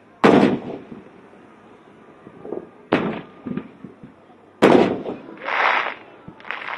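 Aerial firework shells bursting: three loud booms, near the start, about three seconds in and just before five seconds, each trailing off in a rumble, with a smaller bang near the end.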